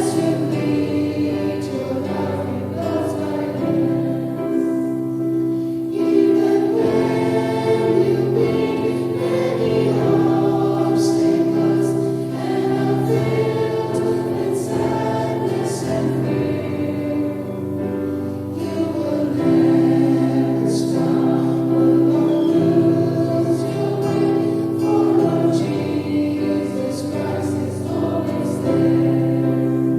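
A choir singing a slow Christian hymn, with held notes and sustained accompaniment.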